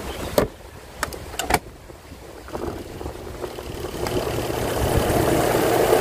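Three sharp plastic clicks as a twin-tub washer's spin-tub cover and lid are shut, then about four seconds in the spin-dryer motor starts and a steady hum builds, growing louder as the basket spins up.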